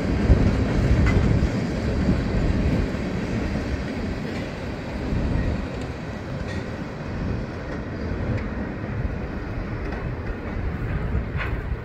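Freight cars rolling across a steel girder railroad bridge: a continuous low rumble of wheels on rail with a few faint clicks. It fades as the last cars pass.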